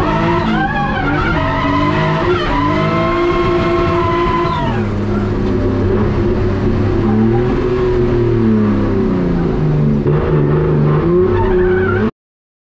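Turbocharged BMW M50B20 straight-six in a drifting Nissan 180SX, heard onboard, revving up and down with tyre skid noise. About four and a half seconds in the revs drop sharply and the engine runs lower, rising and falling gently, until the sound cuts off suddenly near the end.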